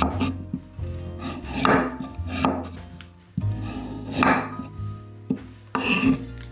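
Kitchen knife cutting the skin off a taro root on a wooden cutting board, in several short scraping strokes.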